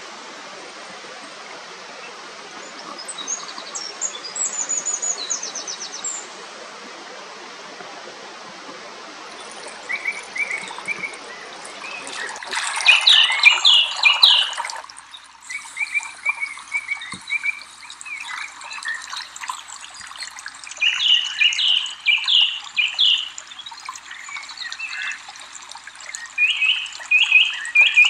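Small songbirds chirping and trilling repeatedly over a steady rush of running water. A louder burst of rushing noise comes about halfway through, after which the background thins and the chirps carry on.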